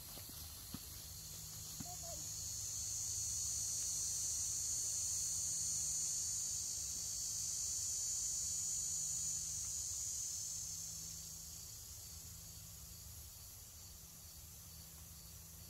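Insects buzzing in the summer trees: a high, steady drone that swells a couple of seconds in, holds, and fades away over the last few seconds.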